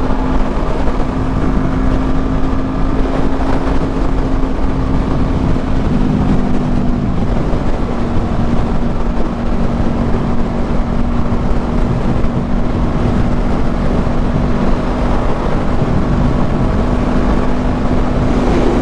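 Honda CB500F parallel-twin motorcycle engine running at a steady cruise, with wind rushing over the microphone. The engine note shifts slightly about six seconds in, then holds steady again.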